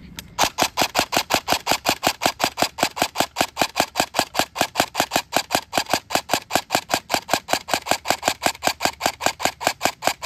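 Electric airsoft rifle on a 7.4 V LiPo battery fired semi-auto by rapid trigger pulls, with the magazine out of BBs: a steady string of sharp mechanical shots, about five a second.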